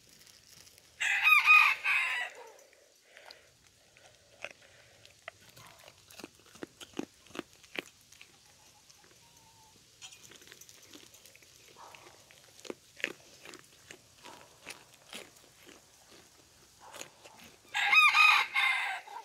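A rooster crows twice, once about a second in and again near the end, each crow lasting over a second. In between, a goat chews carrots with a run of short crunching clicks.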